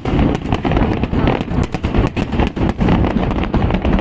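Aerial fireworks bursting in quick succession: several sharp bangs a second overlapping on a continuous low rumble.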